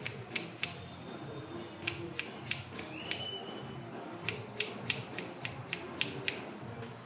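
Irregular sharp metallic clicks and ticks from hand tools working on a motorcycle's front brake as it is loosened, with a brief high squeak about three seconds in.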